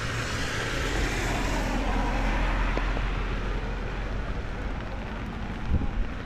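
Road traffic on a rain-soaked road: a vehicle's tyres hiss through the water as it passes, the hiss fading about two seconds in, over a steady low rumble.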